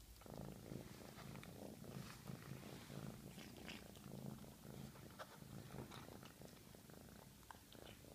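A cat purring steadily while crunching dry kibble, with many small sharp crunches scattered over the faint, pulsing purr.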